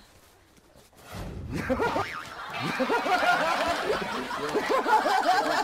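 Several people laughing. The laughter breaks out about a second in after a quiet moment and keeps going.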